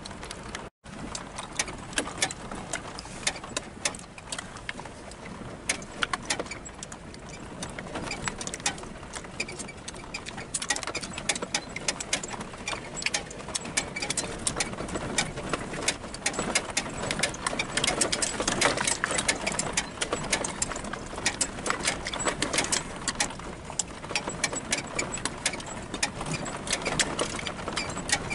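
A vehicle driving on a rough dirt road, heard from inside the cab: the engine runs under the crunch of tyres on dirt and gravel, with a constant fast rattle and clicking of the body over bumps that gets louder after about ten seconds.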